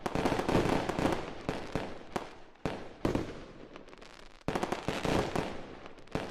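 Fireworks going off: dense crackling pops and bangs that come in surges, at the start, again around three seconds in, and again at about four and a half seconds.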